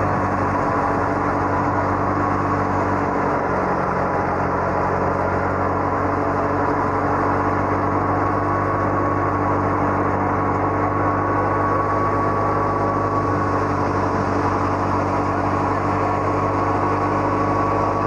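Tractor-driven wheat thresher running steadily under load: a constant mechanical hum with a high, even whine, with no change in speed.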